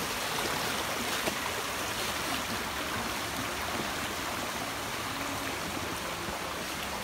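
Shallow, swollen stream running steadily: a constant rush of flowing water.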